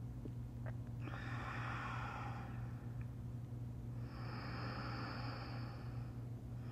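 A woman taking two long, deep breaths during a yoga breathing cue, the first about a second in and the second about four seconds in, over a steady low hum.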